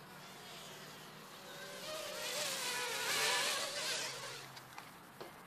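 JJRC Super Swift mini quadcopter's motors and propellers buzzing with a high, wavering whine. The whine grows louder about two seconds in, peaks past the middle and fades again as the drone flies past.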